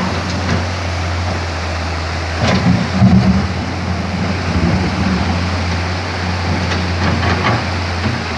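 Komatsu PC210 excavator's diesel engine running steadily under working load, a low hum with a noisy rush over it that swells briefly about three seconds in and again near the end.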